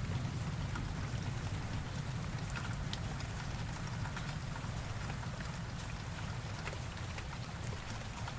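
Rain sound effect: steady rainfall with scattered pattering drops over a low rumble that slowly eases off.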